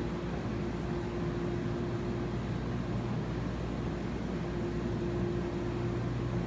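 Jetted bathtub's pump motor running with a steady hum, water churning through the jets.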